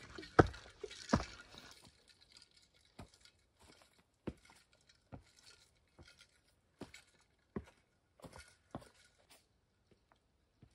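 Footsteps on rocks and dry leaves along a rocky forest trail: a few louder steps and knocks in the first second or two, then softer, evenly spaced steps about every 0.7 s that stop shortly before the end.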